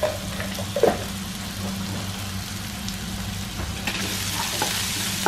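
Sliced onions, green chillies, ginger and curry leaves sizzling in coconut oil in a nonstick frying pan. About four seconds in, a wooden spatula starts stirring them and the sizzle gets louder.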